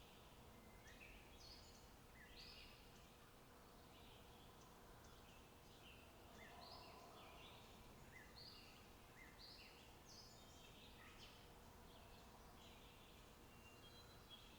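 Faint birdsong: many short, high chirps repeated and overlapping throughout, over a low steady background hiss.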